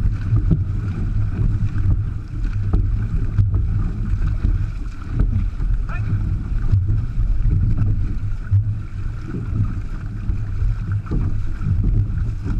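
Water rushing and splashing along the hull of a six-person outrigger canoe under way, with paddle blades splashing into the water, heard from a microphone close to the water line. A heavy, steady low rumble of water and wind buffeting the microphone dominates.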